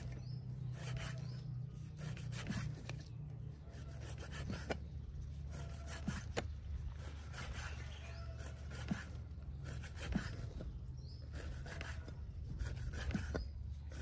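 Knife filleting hairtail fish: irregular cutting and scraping strokes with a few sharp ticks, over a steady low hum.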